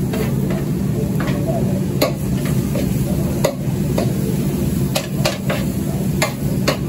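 Diced meat sizzling on a large steel tantuni pan as it is stirred and pushed around with a scraper and a metal ladle, giving irregular sharp scrapes and taps against the steel over a steady low hum.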